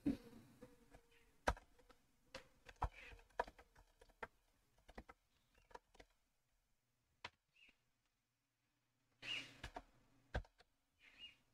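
Faint computer keyboard typing: irregular keystroke clicks, dense for the first six seconds or so, then only a few isolated clicks and two brief rustling bursts near the end.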